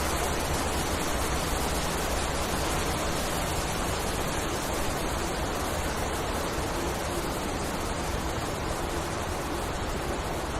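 Wind blowing steadily through a forest, a dense even rush of noise.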